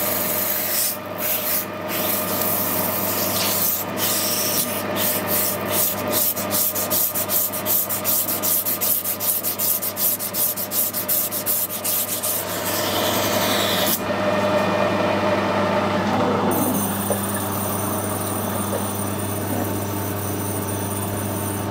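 Abrasive tape rubbed back and forth over a pitted steam-valve spindle turning in a metal lathe, polishing it: a rasping in quick even strokes over the lathe's steady hum. The rubbing stops about two-thirds of the way in, leaving a steady machine hum.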